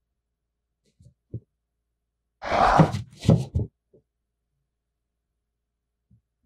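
Two soft low thuds, then a loud, harsh, breathy vocal sound about two and a half seconds in, like a growling exhale, followed by a shorter grunt.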